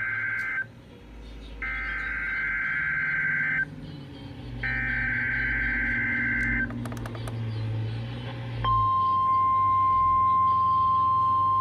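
NOAA Weather Radio Required Weekly Test: the screeching digital SAME header bursts, the last of one ending just as it begins and then two more of about two seconds each with a second's gap between. A few clicks come about seven seconds in. Then, near nine seconds, the steady single-pitch 1050 Hz warning alarm tone starts and holds, over a low hum.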